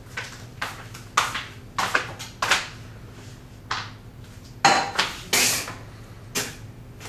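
A string of short sharp clatters and knocks, about nine in all, with a longer, harsher one about two-thirds of the way through, from a cup and milk carton being handled at a kitchen counter and sink.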